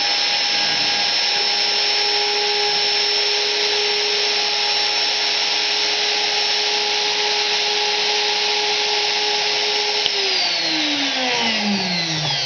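The rose engine's small electric cutter motor runs at high speed with a steady whine over a hiss. About ten seconds in it is switched off, and its pitch falls as it spins down.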